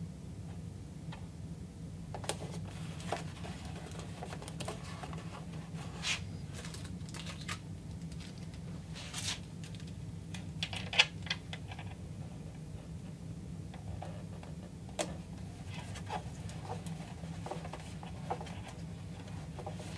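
Scattered small clicks and taps as metal washers and fingers are handled on threaded studs set in a cardboard template, one sharper click about eleven seconds in, over a steady low hum.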